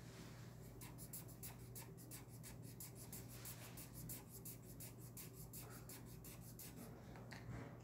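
Blue Expo marker scribbling back and forth on paper, colouring in: a fast, faint run of short scratchy strokes that starts about a second in and stops near the end.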